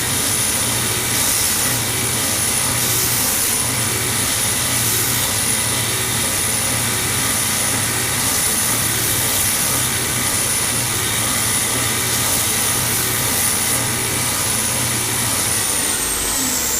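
Electric woodworking power tool running steadily with a high-pitched whine, which winds down in pitch near the end as the tool is switched off.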